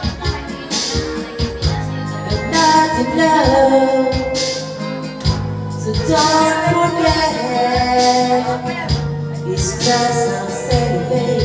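A videoke backing track with drums and bass, and a woman singing along into the karaoke microphone.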